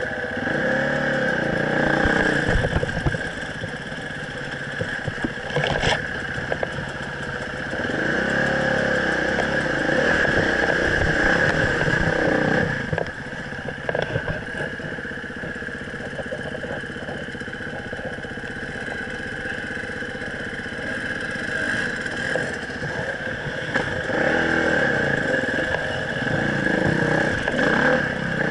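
Dirt bike engine running along a rocky single-track trail, the revs rising and falling again and again as the rider works the throttle over rocks and turns.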